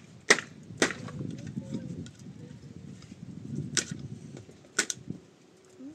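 Sharp, hard blows, as of a tool striking: two about half a second apart near the start and two about a second apart near the end, with low rustling and shuffling in between.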